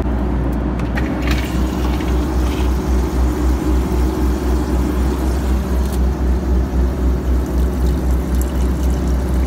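Low steady drone of an airliner's cabin in flight, throbbing regularly about two to three times a second, with water from the lavatory tap running into the sink.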